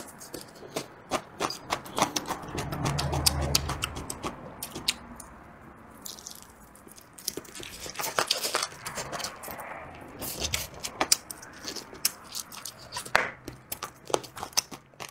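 Close-miked eating sounds: a person chewing and gnawing on a spicy chicken wing, with many quick wet mouth clicks and smacks as the meat is worked off the bone.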